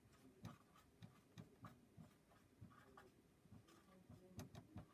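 Dry-erase marker writing on a whiteboard: faint, short, irregular strokes of the marker tip as words are written out.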